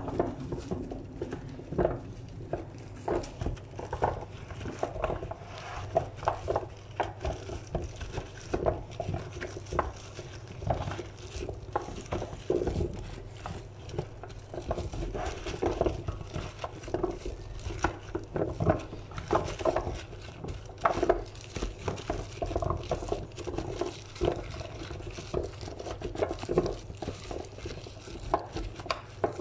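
Raw butternut squash cubes being turned and rubbed by a gloved hand in a metal roasting tray: pieces knocking and scraping against each other and the tray in irregular soft clatters, over a low steady hum.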